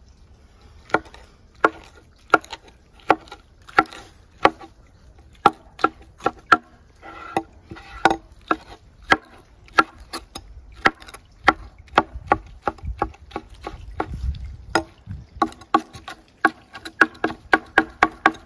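A knife chopping on a wooden cutting board, with sharp, evenly spaced chops at about one and a half a second, quickening to about three a second near the end.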